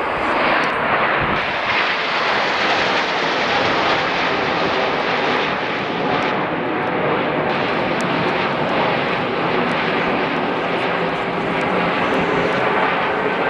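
Red Arrows formation of nine BAE Hawk T1 jets passing overhead, their turbofan engines making a loud, steady rushing jet noise that swells up within the first half second.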